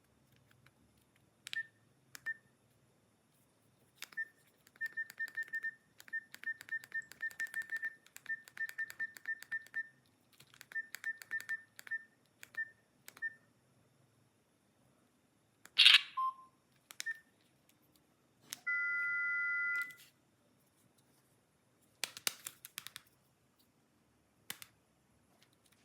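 Buttons on a small electronic keypad device being pressed, each press a click with a short high beep, in quick runs of many presses. About two-thirds through there is a loud click, then a steady two-tone electronic beep lasting about a second, followed by a few more clicks.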